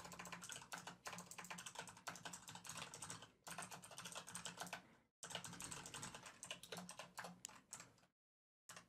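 Faint, quick typing on a computer keyboard, in runs of keystrokes that pause briefly about five seconds in and again near the end.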